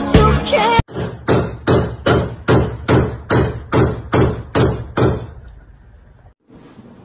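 Pop music cuts off under a second in. It is followed by about a dozen evenly spaced sharp knocks, roughly two and a half a second, each trailing off, which stop a little after five seconds in.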